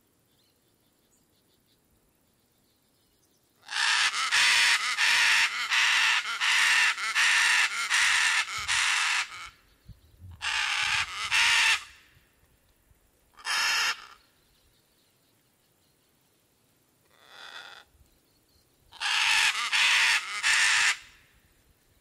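Scarlet macaws squawking, harsh and raspy: a long run of rapid squawks, then shorter bursts, a faint call and a final run near the end, with quiet gaps between.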